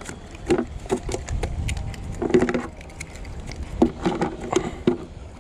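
Irregular knocks and taps of hands and fishing gear against an inflatable paddle board while a hooked fish is being brought in, with a low rumble about a second and a half in.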